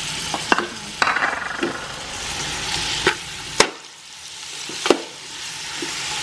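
Shredded chicken, cabbage and sliced hotdogs sizzling as they are sautéed in oil in a stainless steel pot. A metal spoon stirring them scrapes and clinks sharply against the pot several times.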